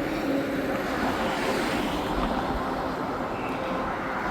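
Steady road traffic passing on the bridge carriageway: a continuous rush of tyre and engine noise with a faint hum.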